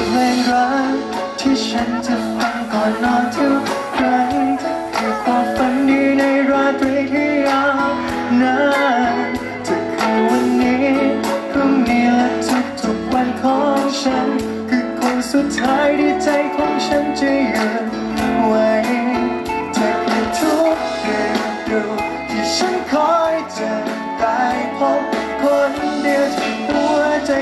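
Live band performance: a male singer sings a pop song into a microphone, with electric guitar and band accompaniment.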